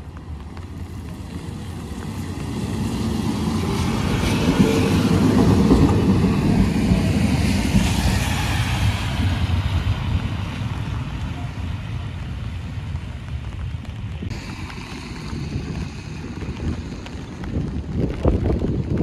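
A 1951 PCC streetcar rolling past on its rails, a rumble that swells over the first several seconds and then slowly eases, mixed with wind on the microphone.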